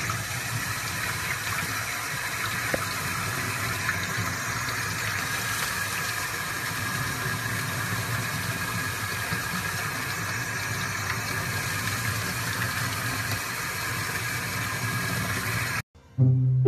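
Sink faucet running steadily, water pouring onto a puppy being rinsed in the sink and splashing into the basin. It cuts off abruptly near the end.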